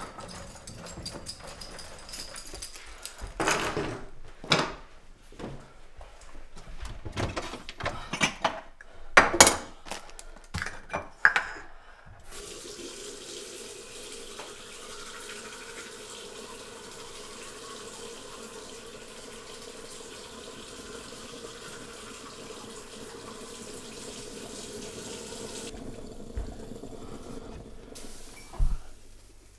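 A run of knocks and thumps, then a bathroom tap running steadily into the sink for about thirteen seconds and shutting off abruptly, then a couple of knocks near the end.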